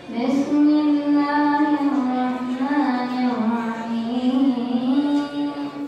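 Background vocal music: one high voice singing long held notes that slowly bend up and down in pitch.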